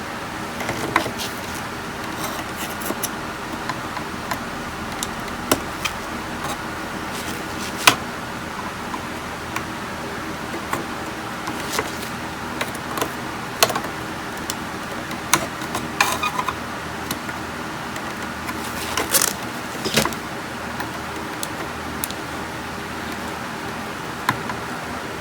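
Irregular light clicks and taps of tools and small metal parts being handled during electronics repair, over a steady background hum; the sharpest clicks come about eight seconds in and again near twenty seconds.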